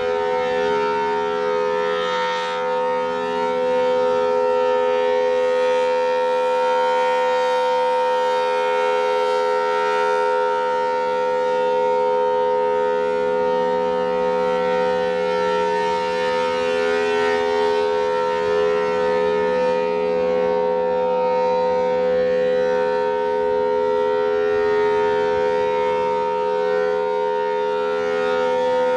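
Federal Signal Thunderbolt 1000T outdoor warning siren sounding its steady Alert signal: a loud, unwavering two-note chord from its dual-port chopper, with no rise or fall in pitch.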